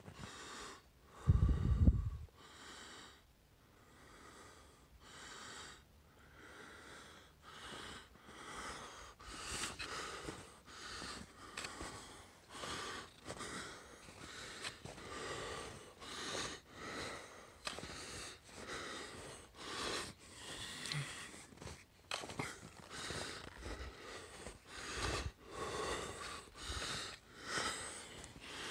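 Heavy, rapid breathing of a person walking through snow close to the microphone, about two breaths a second. A brief loud rumble hits the microphone about a second in.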